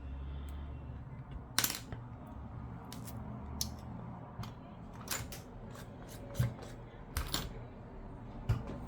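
Irregular light clicks and taps, about a dozen, from handling an iPad 2 while its newly fitted digitizer is tested, over a low steady hum.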